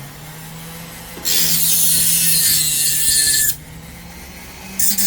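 VEVOR flex shaft rotary grinder running steadily, its disc grinding away a sharp metal piece: a loud grinding hiss comes in about a second in and lasts a couple of seconds, then starts again near the end.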